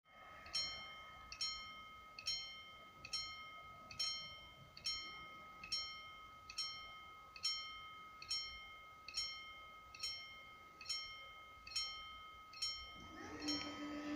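Level-crossing warning bell striking steadily, a little more than once a second, each strike ringing out. Near the end a steady low hum starts up beneath it, the barrier motor beginning to lift the arms.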